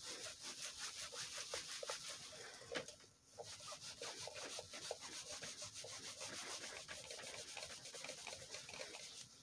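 Faint rubbing of a cloth scrubbing the grimy plastic case of a Sony Dream Machine ICF-C122 clock radio, in quick, even back-and-forth strokes, with a brief pause about three seconds in.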